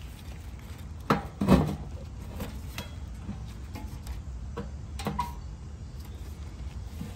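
Metal knocks and clinks as a steel motor mounting bracket and its bolt and washer are worked against a galvanized sheet-metal blower housing. The two loudest knocks come about a second and a half in, with a few lighter clicks later.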